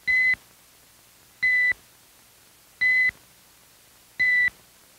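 Electronic beep tone, four short, identical high beeps evenly spaced about a second and a half apart, like a countdown timer ticking off the seconds.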